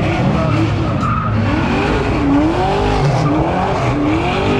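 A car engine revving hard, its pitch rising and falling again and again, over the continuous screech of tyres spinning and sliding on pavement as the car does a burnout.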